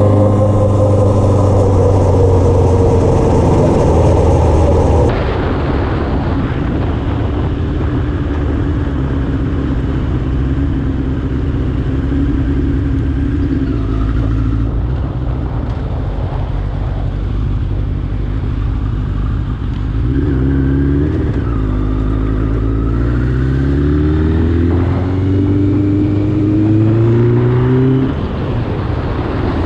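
Suzuki GSX-R motorcycle's inline-four engine running on the road, fairly steady at first, then revving up several times in quick succession in the last third, pitch climbing and dropping back as it pulls through the gears.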